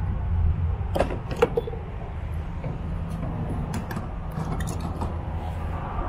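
Fuel nozzle and dispenser being handled at a self-service gas pump for regular gasoline: a few sharp clicks about a second in and a cluster of clicks a little later, over a steady low hum.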